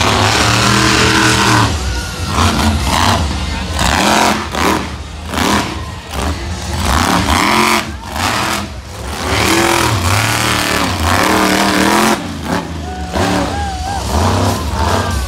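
Monster truck engine revving up and down over and over, each rev rising and falling in pitch as the truck drives around the dirt arena.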